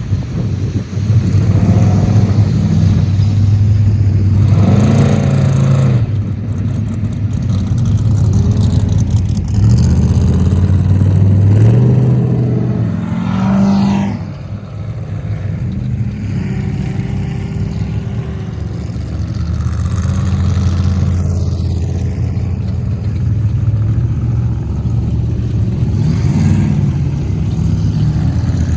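Off-road race vehicles' engines revving as they pass, one after another, over a steady low engine drone. The engine pitch rises and falls with each pass, several times.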